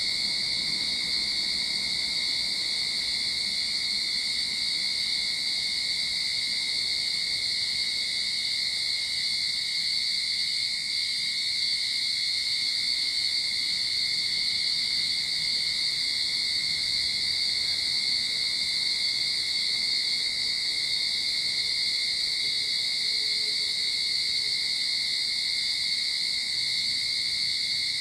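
Cicadas singing in a steady, unbroken chorus: a continuous high-pitched drone that holds its level throughout.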